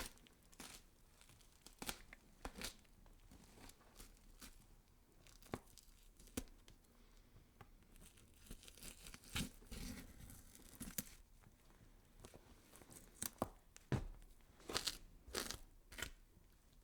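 Horror sound effect of flesh being scraped and cut: irregular sharp crackles and scrapes, thickening into denser clusters around the middle and again toward the end.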